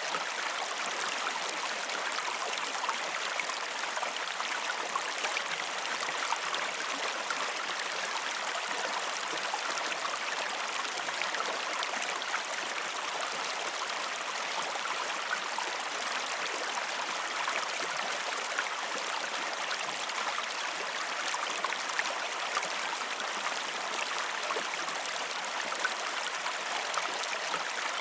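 A calm river flowing steadily: a continuous rush of water with many small splashes running through it.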